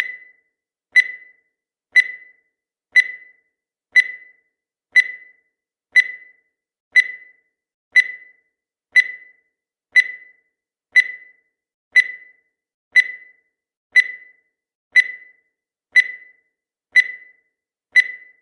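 Countdown timer sound effect: a short, high beep once every second, each dying away quickly.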